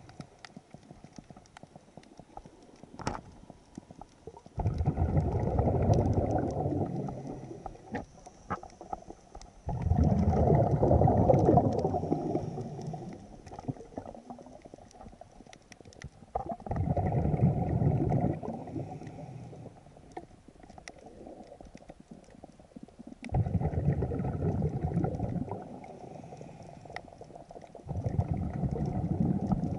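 Scuba diver breathing through a regulator underwater: five bursts of exhaled bubbles rushing and gurgling, each lasting two to three seconds, with quieter gaps between while he breathes in.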